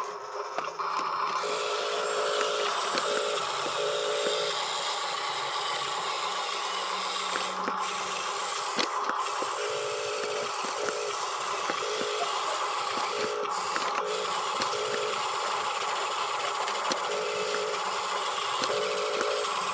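Huina RC dump truck's small electric drive motor and gears whining as it drives over dirt, the whine switching on and off in short bursts of throttle, with small ticks and crunches from the wheels.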